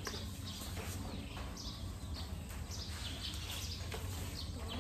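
Small birds chirping repeatedly, short high descending calls about twice a second, over a low steady rumble.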